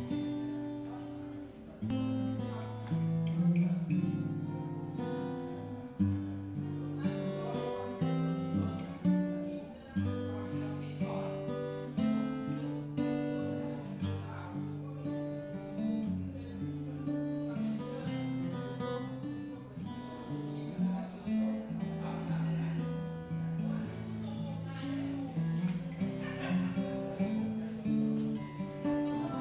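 A Gibson J-45 acoustic guitar, a round-shouldered dreadnought, played solo with the fingers: a continuous piece picking out a melody over sustained bass notes.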